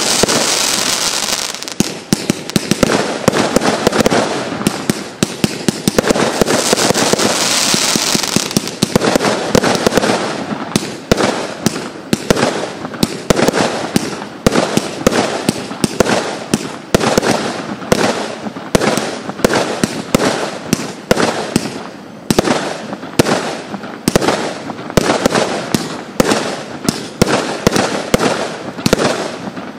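Lesli 'Blue Lion King' firework battery (cake) firing shot after shot. For the first nine seconds or so the shots and breaks run together densely; from about ten seconds in they come singly and evenly, two or three a second.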